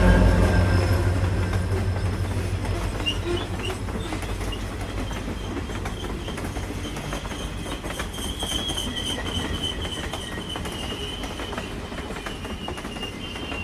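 Train passing close by: a loud low rumble that fades over the first few seconds, then the railcars rolling past with a clickety-clack and a thin high wheel squeal in the second half.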